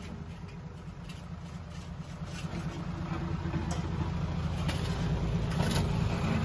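Diesel engines of a Komatsu mini excavator and a dump truck running steadily at low revs, a low hum that grows gradually louder toward the end.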